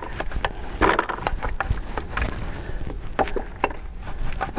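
A long-handled wheel brush scrubbing inside a wet alloy wheel's spokes and barrel, its bristles swishing while the brush knocks against the wheel with irregular taps, a few a second, loosening the brake dust softened by the wheel cleaner.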